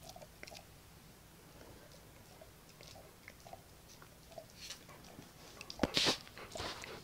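Dogs' mouths and noses right at the microphone: faint scattered clicks and wet mouth sounds from chewing and licking, then a couple of louder sniffs near the end as a border collie's nose reaches the microphone.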